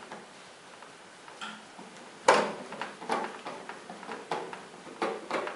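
A string of irregular clicks and knocks, the first and loudest about two seconds in, from hand-fitting the screws of a chest freezer's lid hinges.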